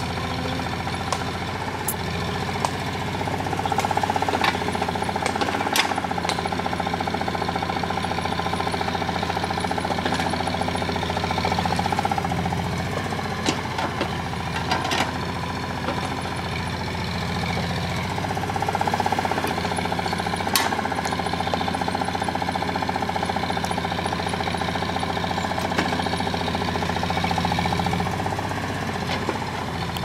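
Caterpillar hydraulic excavator's diesel engine running under load as it digs, its note swelling every several seconds as the boom and bucket work. A few sharp knocks stand out over the engine.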